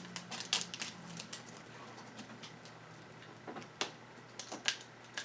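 Faint, scattered clicks and rustles of small plastic toy packaging being handled and opened.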